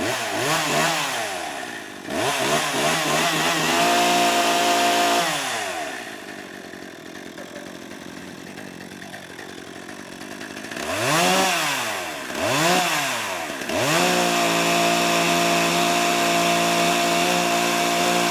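Two-stroke chainsaw engine revved in short blips, dropping back to idle in between, then held at high revs for several seconds before easing off at the end.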